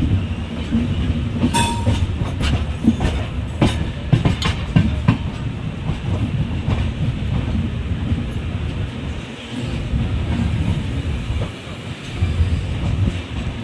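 Moving train running on the rails: a steady low rumble with the clickety-clack of wheels over rail joints, thickest in the first few seconds, and a brief high-pitched tone about one and a half seconds in.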